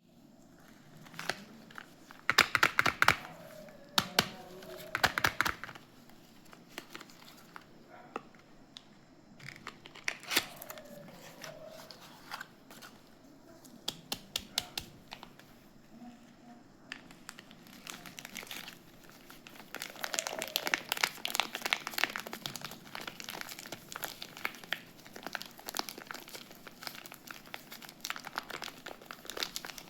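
A soap bar's wrapper being handled and unwrapped, crinkling and tearing in bursts. The loudest crackling comes a few seconds in, and there is a longer stretch of dense crinkling about two-thirds of the way through.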